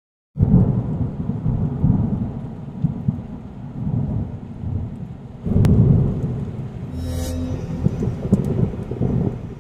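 Thunder sound effect: a rumble of thunder with rain that starts suddenly about a third of a second in, swells twice more and fades out near the end.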